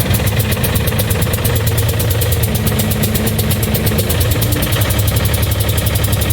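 John Deere 260 skid steer's three-cylinder diesel engine running steadily just after a restart, with a miss in it; the engine has a blown head gasket.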